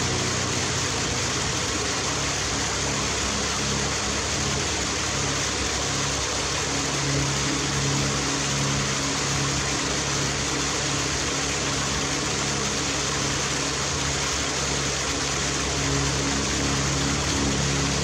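Small waterfall cascading over rocks into a pool: a steady, even rush of falling water.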